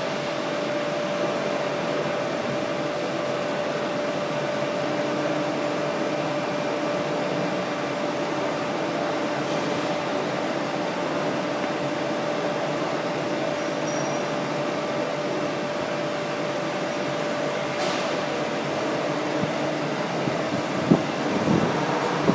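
Two-station BTA deep hole drilling machine running steadily: a constant mechanical hum with one held tone. A few sharp knocks near the end.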